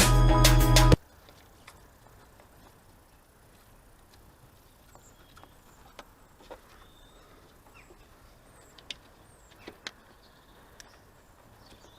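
Background music stops about a second in. It gives way to faint ambience with a few small scattered clicks and ticks.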